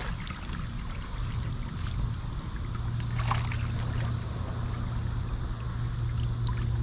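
Water sloshing and dripping around a man wading waist-deep as he hauls a cast net back in by its line, with a few small splashes. A steady low hum sets in about a second in and runs beneath it.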